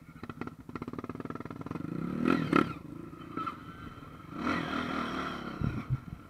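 Dirt bike engine chugging at low revs, then revving up hard twice, the first time to the loudest point about two and a half seconds in. A few low thumps near the end.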